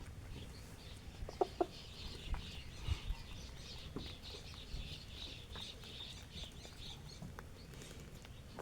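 Village hens clucking while they peck at grain, two short clucks about a second and a half in, with scattered soft taps. A dense high twittering runs underneath.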